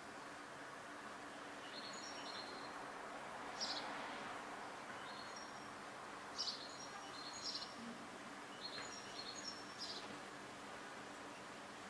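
Birds chirping in short clusters of high notes every second or two, over a faint steady background hiss.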